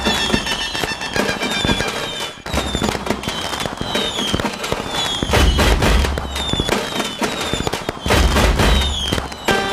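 Fireworks crackling and popping, with short falling whistles again and again and deep booms about halfway through and again near the end.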